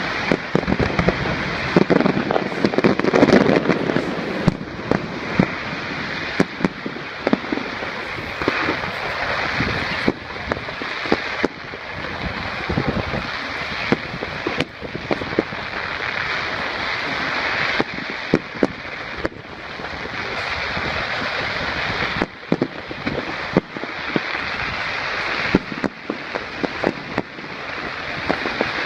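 Fireworks display: a rapid, irregular run of sharp bangs and crackles over a constant rushing noise, heaviest about two to four seconds in.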